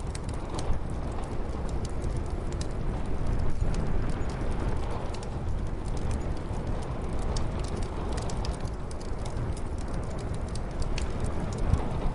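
Wood fire crackling with scattered sharp pops over a steady low rumble of muffled snowstorm wind.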